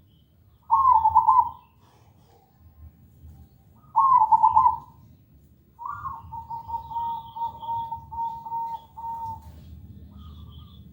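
Zebra dove (perkutut) singing: two loud short cooing phrases, then a long, even run of rapid repeated notes. Faint high chirps from other small birds sound in the background.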